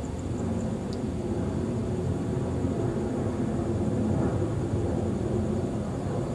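Steady low outdoor rumble, like distant traffic or wind on the microphone. A faint high pulsing trill stops about half a second in, and there is a single light tick about a second in.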